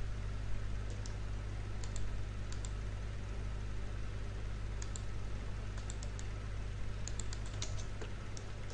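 Computer mouse and keyboard clicks as lines are picked and trimmed in a CAD program: scattered single clicks with gaps, then a quicker run of several near the end, over a steady low electrical hum.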